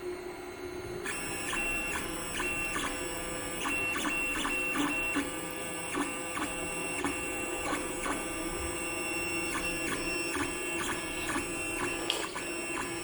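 3D printer printing: its stepper motors whine in shifting tones, with frequent ticks and short pitch changes as the head moves, starting about a second in over a steady hum.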